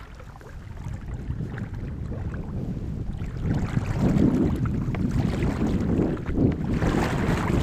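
Wind buffeting the microphone over the rush of shallow current through a rocky river channel as a canoe drifts. It grows louder about three and a half seconds in.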